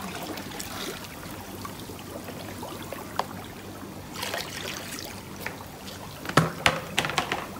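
Steady trickling water in a plastic basin, with a few sharp knocks near the end.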